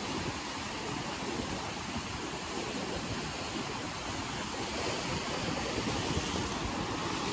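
Sea surf breaking and washing in foam over shoreline rocks: a steady rush of water.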